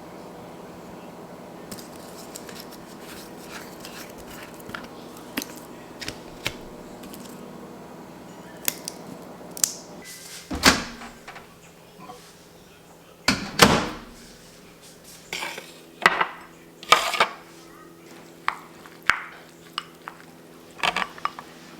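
Dishes and cutlery clinking and clattering as food is served, in a string of short sharp knocks, the loudest about halfway through, over a steady low hum.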